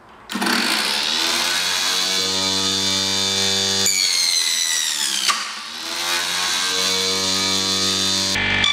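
Small prototype table saw's motor switched on and whining up to speed. From about four seconds in its pitch sags as the blade cuts a panel fed freehand. About a second later there is a single sharp crack as the workpiece kicks back, and with no blade brake fitted the motor keeps running and winds back up to speed.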